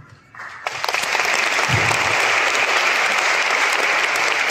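Audience applauding in a large hall, building up within the first second and then holding steady and loud.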